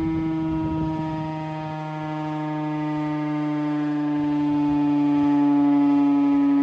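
Federal Signal STH-10 outdoor warning siren sounding a long steady curfew tone with many overtones, its pitch sagging slightly. It fades a little about two seconds in and swells louder again near the end.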